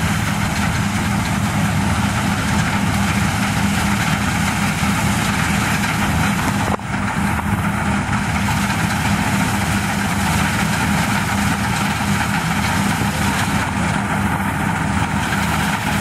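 New Holland TC5070 combine harvester running steadily under load while cutting wheat, its engine and threshing machinery making a continuous loud noise with a low hum.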